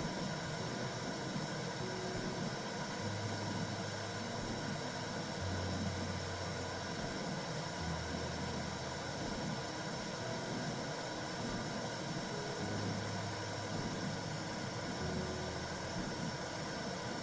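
Womb-sound white noise: a steady rumbling hiss, with soft low held tones underneath that shift in pitch every couple of seconds.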